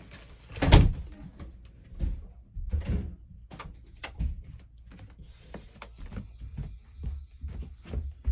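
Irregular low thumps and knocks with lighter clicks between them, the loudest about a second in: the bumping and rubbing of a handheld phone being carried about.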